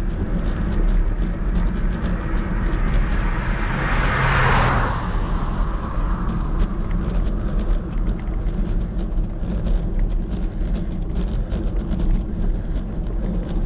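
A car passes about four and a half seconds in, its noise swelling and then fading, over a steady low rumble.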